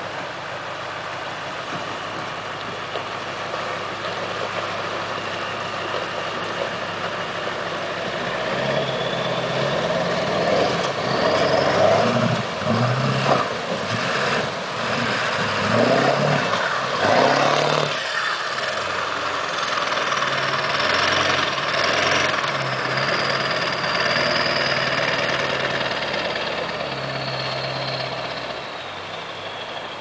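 Lifted Ford pickup's 7.3-litre Power Stroke diesel V8 revving as it fords a river, growing louder about eight seconds in and easing off near the end, with a high whine rising and falling over it. Water splashes around the tyres in the middle, over the steady rush of the river.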